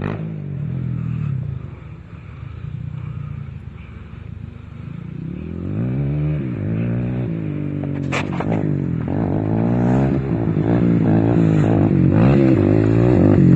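Kawasaki KFX400 quad's single-cylinder four-stroke engine through a full HMF exhaust, revving up and down repeatedly as it is ridden over the track. It is faint at first and grows louder near the end as the quad comes closer.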